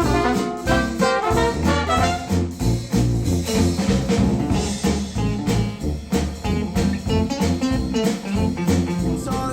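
Jazzy instrumental music with brass and a steady beat, played back through Wharfedale Denton 80th bookshelf speakers driven by a NAD C 388 integrated amplifier.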